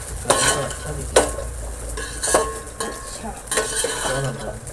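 Metal spoon stirring biryani in a cooking pot, clanking against the pot's side about once a second with a short metallic ring each time, while the food sizzles.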